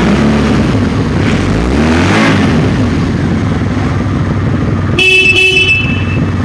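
1997 Honda VF750 Magna's V4 engine revved once with the throttle, then idling steadily. About five seconds in, the motorcycle's horn sounds two short beeps over the idle.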